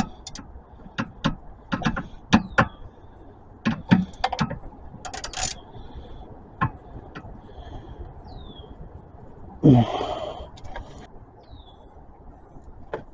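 Irregular metallic clicks and clinks from a ratchet and 17 mm socket working the oil drain plug loose on a Kia K4's 2.0 engine, the start of draining the oil. About ten seconds in comes a single louder, half-second burst of noise.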